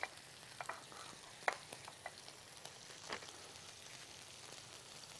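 Pieces of skin-on fish sizzling quietly in oil in a frying pan, with a steady hiss and scattered sharp spits and pops from the fat.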